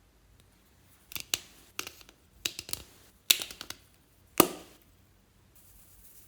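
Slime being worked by hand, giving clusters of sharp crackling clicks and pops, the loudest about four seconds in.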